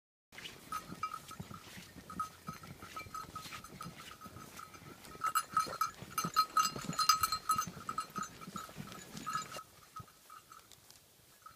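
A small bell on a walking horse's tack jingling in quick repeated pulses at one pitch, in time with its steps, over soft crunching of hooves in snow. The jingling is loudest in the middle and grows fainter near the end.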